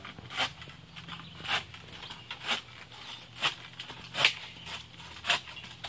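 Manual pole saw cutting a tree branch overhead: a rasping saw stroke about once a second.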